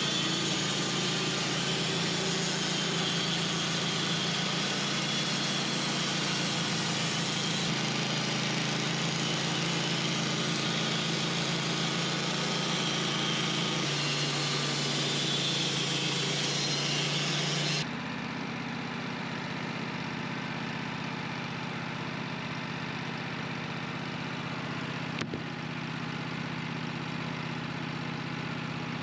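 Wood-Mizer portable band sawmill running: a steady engine drone under a loud, bright hiss. About two-thirds of the way through, the sound drops suddenly to a quieter steady engine drone with much less hiss.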